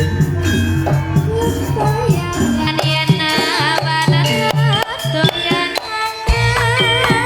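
Javanese jaranan ensemble music: hand drums and rattling percussion beat a steady pattern under a high melody line that wavers in pitch.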